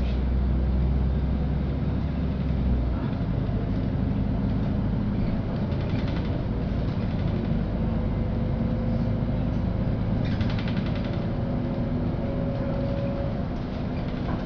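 LiAZ-5292.65 city bus running along the street, its engine and drivetrain heard from inside the passenger cabin. The deep engine hum drops about three seconds in, and there is a brief rattle about ten seconds in.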